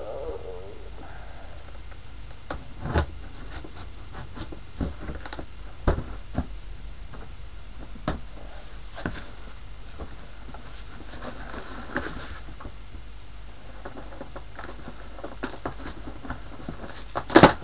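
A cardboard shipping box being cut and pried open by hand: scattered knocks and taps on the cardboard with stretches of scraping and rustling, and a louder clatter near the end.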